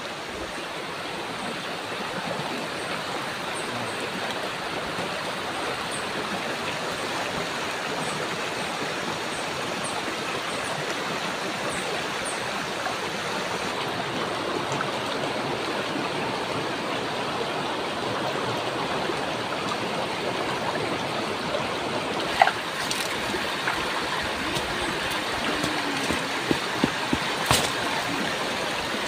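Shallow river rushing steadily over stones. A sharp knock comes about three quarters of the way through, then a few more near the end.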